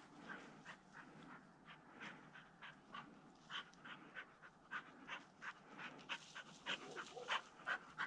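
Pointer dog panting fast, about three breaths a second, faint at first and growing louder near the end.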